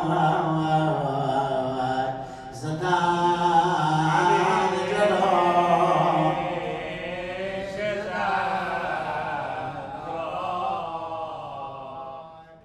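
A man chanting a Muharram mourning lament solo, in long held, wavering notes, with a short breath about two seconds in and the voice fading near the end.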